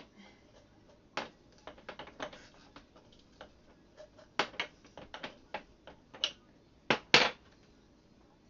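Muddler mashing cranberries in a glass jar: irregular knocks and clicks, with a pair of louder knocks near the end.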